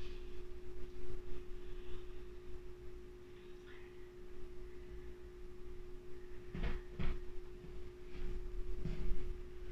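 A steady hum held at one pitch, with two brief soft knocks about two-thirds of the way through.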